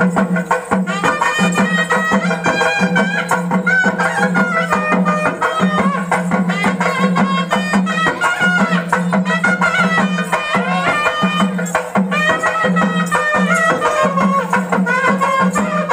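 Village folk band music: a reedy wind instrument plays a bending, ornamented melody over a steady low drone and fast, continuous tamate frame-drum beats.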